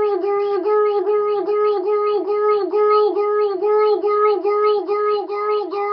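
A child's voice making a mouth sound effect: 'girl' repeated over and over inside the mouth on one held pitch, warbling about three times a second.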